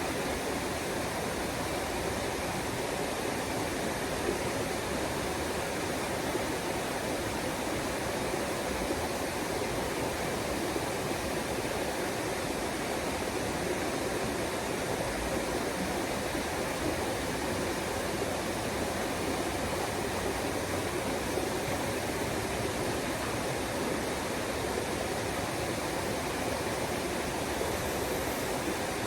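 Waterfall rushing in an even, unbroken roar of falling water.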